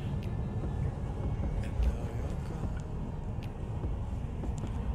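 Steady low road and tyre rumble heard inside the cabin of a moving Tesla electric car, with no engine note.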